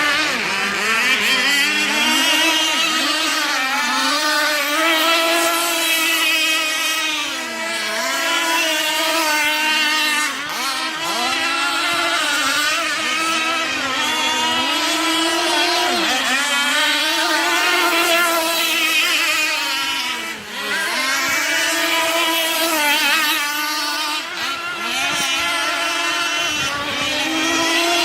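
Petrol-engined radio-controlled catamaran boat running at speed, its high engine whine rising and falling in pitch as it throttles and turns. The engine note dips briefly where the throttle is lifted, about eight, eleven and twenty seconds in.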